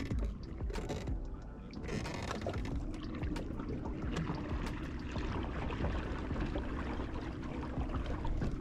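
Small waves lapping and splashing against a fishing boat's hull, with scattered light knocks. A faint steady hum comes in about two and a half seconds in and fades near the end.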